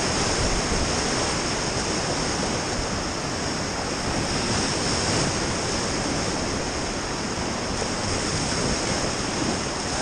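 River rapids rushing and churning around an inflatable raft: a steady, unbroken wash of whitewater noise.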